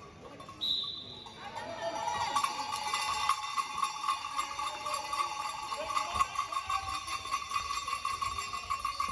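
A bell shaken rapidly and continuously, ringing steadily from about a second and a half in, in a large sports hall.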